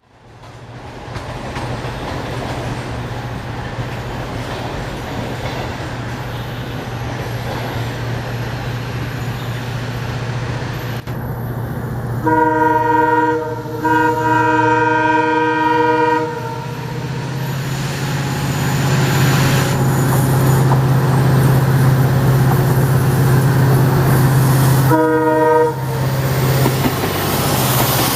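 WDP-4B diesel-electric locomotive hauling a passenger train, its EMD 16-cylinder two-stroke engine running under load with a steady low drone that grows louder as it approaches. Its multi-tone horn sounds two long blasts in quick succession about twelve seconds in, and one short blast near the end.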